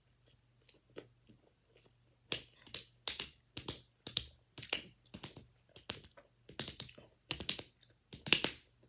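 A boy's mouth noises while eating a hot-sauce-covered chicken nugget: short, sharp smacks and puffs about two a second, starting a couple of seconds in.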